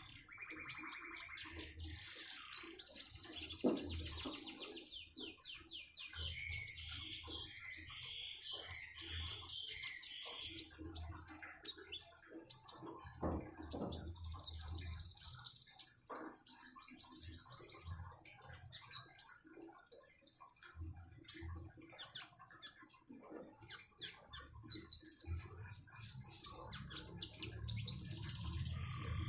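Konin songbird singing a long, varied song of rapid chirps and fast trills, with short pauses between phrases.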